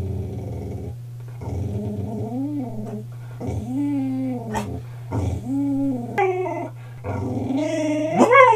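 A dog vocalizing in a string of drawn-out sounds that rise and fall in pitch, about six in a row, as if talking. Near the end one sweeps sharply higher and is the loudest.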